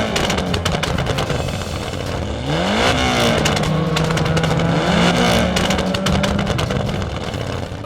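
Engine running steadily and revving up twice, its pitch rising and levelling off each time.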